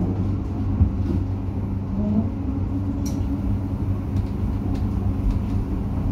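A Croydon tram running along the track, heard from inside the car: a steady low rumble of wheels on rail with a constant hum, and a single sharp click about three seconds in.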